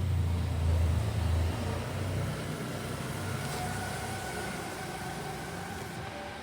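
LG T2512VBTB washing machine's inverter BLDC motor and drum starting a spin-only cycle: a low hum, strongest in the first second and a half, then a faint whine that climbs slowly in pitch as the drum picks up speed.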